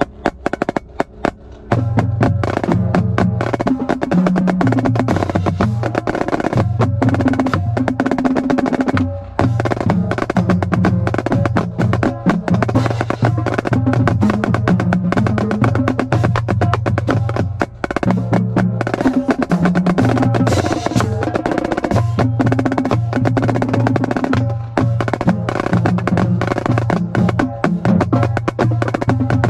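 Marching snare drum played hard and fast, with rapid sticking patterns and rolls, starting in earnest about two seconds in. Music with a low pitched bass line plays underneath.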